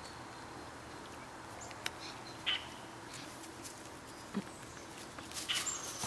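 Syrian brown bear cub scuffling in dry leaves and pine needles: mostly quiet, with a couple of brief high chirps and ticks, then a quick run of rustles and crackles from about five seconds in.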